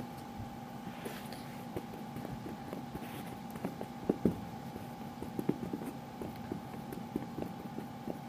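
Knee hockey stick blade tapping a small ball back and forth on carpet in quick, irregular stickhandling strokes, with two louder hits about four seconds in.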